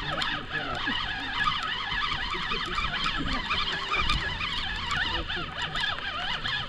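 A flock of birds calling non-stop, many overlapping high squealing calls, with a low steady hum underneath.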